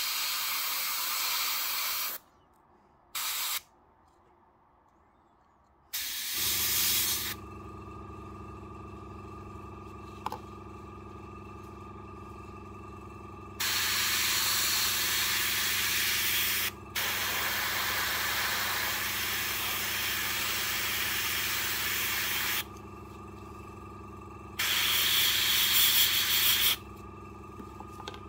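Fengda gravity-feed airbrush spraying paint in repeated hissing bursts, from half a second to several seconds long, with the air cut off between them. About six seconds in, a small airbrush compressor starts and hums steadily under the sprays.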